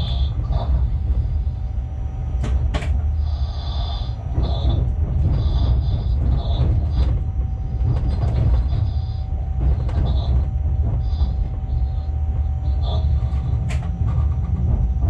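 Shunting locomotive running along yard tracks, heard from its cab: a steady low rumble of the running gear, with a few sharp clacks over rail joints and points and an intermittent high squeal.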